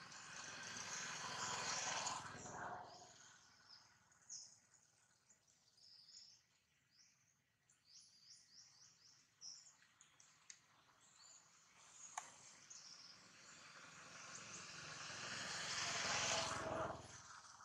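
Faint outdoor ambience of small birds chirping, with two swells of rushing noise: one peaking about two seconds in, and a longer one building near the end and then dropping away.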